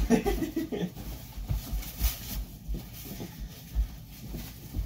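Footsteps thudding on the floor about every half second as a person spins in place, with a plastic trash-bag costume rustling.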